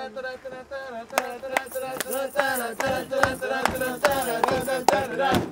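Voices singing or chanting a tune, with sharp clicks on a quick, fairly even beat.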